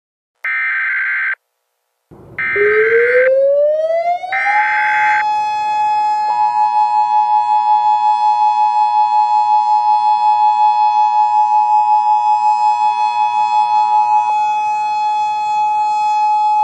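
Emergency Alert System signalling: three short buzzing data bursts of the SAME header, each about a second long. Under the last two, a siren winds up in pitch and then holds steady, pulsing. From about six seconds in, the two-tone EAS attention signal sounds with it until near the end.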